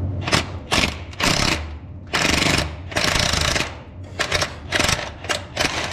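A socket wrench on a long extension backing out a starter mounting bolt on an N14 Cummins diesel, in a string of about ten short bursts of rapid rattling of varying length over a steady low hum.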